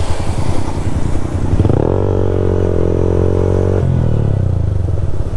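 Yamaha MT-15's 155 cc single-cylinder engine running on the move. About a second and a half in it revs up, holds a high steady note for about two seconds, then drops back.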